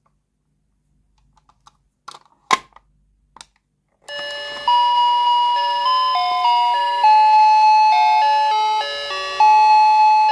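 A few light plastic clicks and taps, then about four seconds in a toy's electronic sound chip starts playing a tinny beeping melody of clean stepped notes that keeps going.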